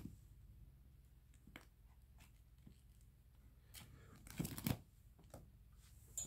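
Plastic binder pocket sleeves rustling and crinkling under a hand, a few faint scattered crinkles. A louder rustle comes a little over four seconds in as a page of sleeves is turned.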